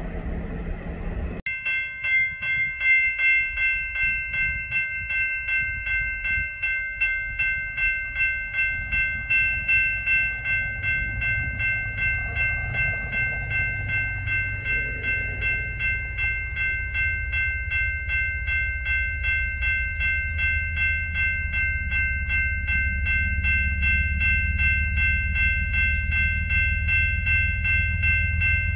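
A railroad grade-crossing bell rings steadily with an even repeating strike while BNSF diesel freight locomotives approach. Their low rumble grows in the second half.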